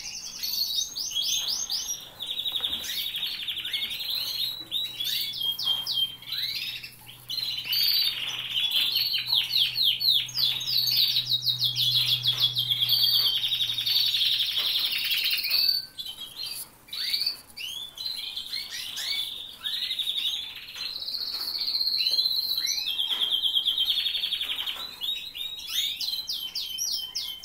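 Many caged canaries singing at once, a dense, unbroken run of fast rolling trills and chirps.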